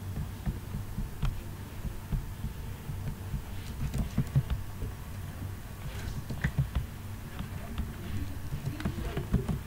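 Sparse, irregular keystrokes and clicks on a computer keyboard and mouse over a steady low hum.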